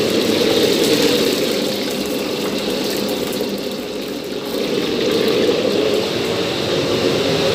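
Steady rushing drone of kitchen machinery, dipping slightly about four seconds in.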